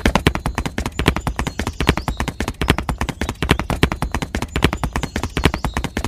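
A rapid, even string of sharp taps, about ten a second, a sound effect of quick footsteps.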